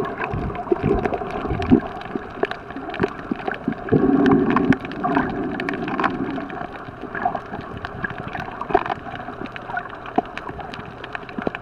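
Water sounds picked up by a camera held underwater while snorkeling: a steady watery wash with many small clicks and crackles, and a louder gurgling rush about four seconds in.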